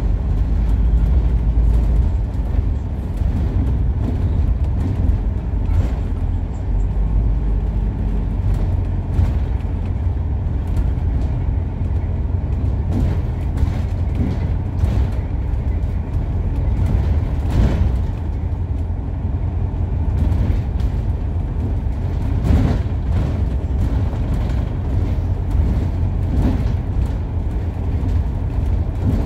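Steady low rumble inside a moving New Routemaster double-decker bus: hybrid drivetrain and road noise, with short knocks or rattles now and then.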